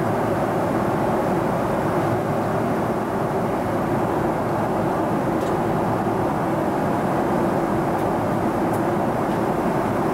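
Steady cabin noise of a Boeing 777-200ER at cruise: an even rush of airflow and engine drone. A few faint ticks sound in the second half.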